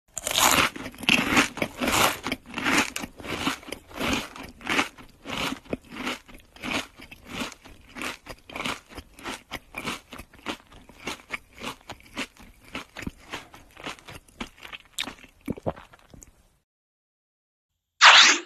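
Repeated crisp crunching, about two to three crunches a second, gradually getting quieter and stopping about two seconds before the end. A short, louder sound begins just before the end.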